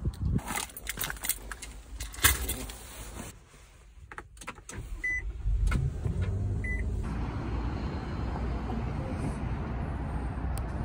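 Car door handle clicks and the door opens, with knocks and a loud door slam about two seconds in. Two short electronic chime beeps follow from the car, then a steady low rumble from the engine.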